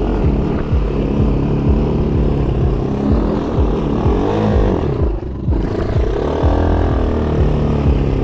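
ATV engine running on an off-road trail, its pitch rising and falling with the throttle and dropping briefly about five seconds in, with many short low thumps throughout.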